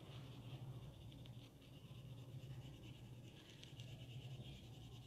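Faint scratching of a colour pencil shading back and forth on drawing paper, over a low steady hum.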